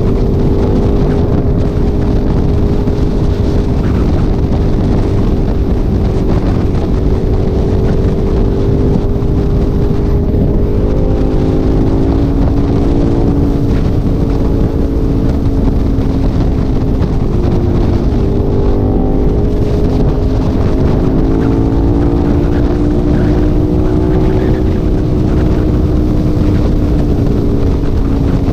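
A vehicle engine droning steadily at freeway cruising speed, its pitch wavering a little, over heavy wind rumble on the microphone.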